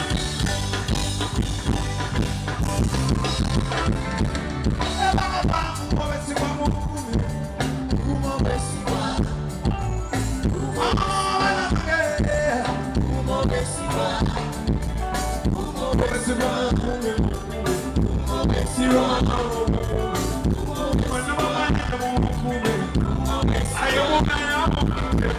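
Live band music with drums and bass keeping a steady beat, and singing coming and going over it.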